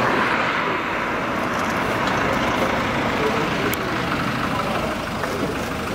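A Citroën-based motorhome driving slowly along the road and pulling up, its engine and tyres making a steady road noise.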